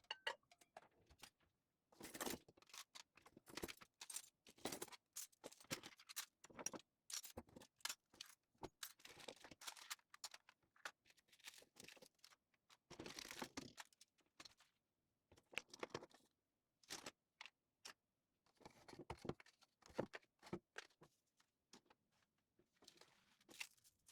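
Metal cutlery clinking and rattling as it is handled and sorted in a kitchen drawer, in quiet, irregular bursts of clatter with short pauses between.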